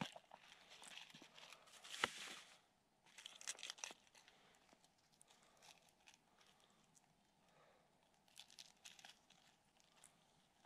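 Faint rustling and crinkling from hands handling small fishing tackle and clothing, with one sharp click about two seconds in and a short crackly rustle soon after. Otherwise near silence, with a few faint crackles later on.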